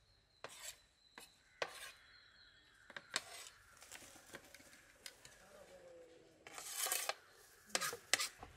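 Knife finely chopping onions and tomatoes: irregular sharp cuts, with a longer scraping stretch about two-thirds of the way through.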